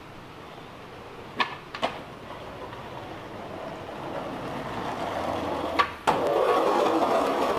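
Skateboard wheels rolling on rough asphalt, growing louder as the board comes closer, with two sharp clacks of the board about a second and a half in and another shortly before the end. The rolling turns suddenly much louder and nearer about six seconds in.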